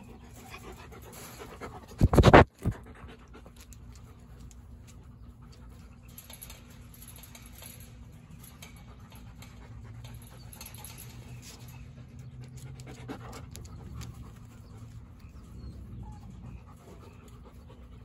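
Dogs panting, with one loud short thump about two seconds in, followed quickly by a second, smaller one.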